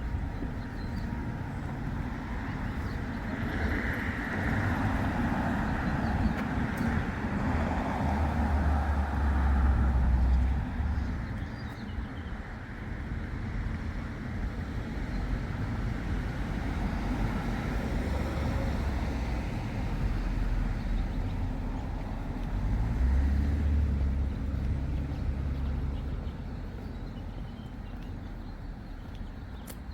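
Road traffic: cars passing by, the noise swelling louder twice, about a third of the way in and again past the middle.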